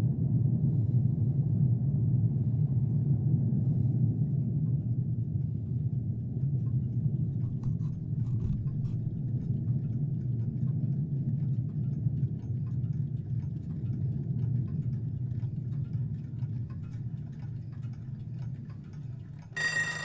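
A recording played through a 1960 Fisher Coronet console's Jensen three-way speakers (P12PL woofer, midrange and tweeter): a steady low rumble with faint clock ticking that grows from about a third of the way in. Near the end, alarm bells suddenly ring out.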